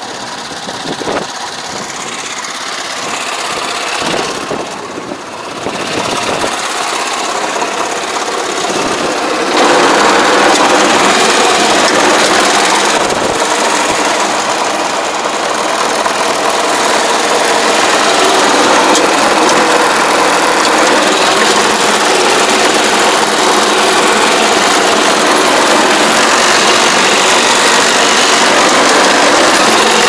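Small engine of an AP1 riding pesticide sprayer running. It gets louder about ten seconds in and then runs steadily as the machine is driven.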